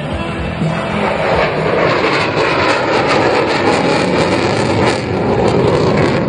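Military jet flying a low pass, its loud rushing engine noise swelling about a second in and holding.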